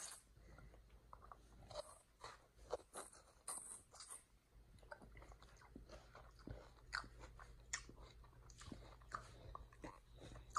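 Chimpanzee biting and chewing watermelon: quiet, irregular wet crunches and clicks as the juicy flesh and rind are bitten and chewed.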